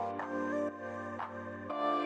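Slow background music of held chords that change once near the end, with a soft accent about once a second.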